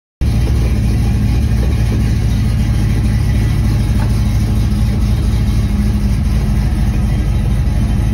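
1965 Chevrolet Chevelle Malibu SS engine idling steadily and loudly; it cuts in suddenly just after the start.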